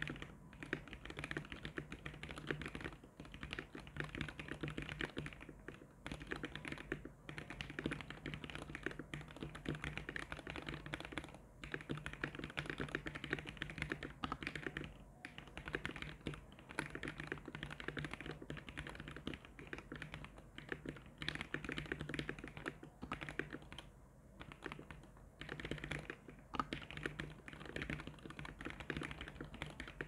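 Mechanical keyboard fitted with Gateron Ink V2 switches being typed on fast and continuously: a dense run of keystroke clacks with a few brief pauses.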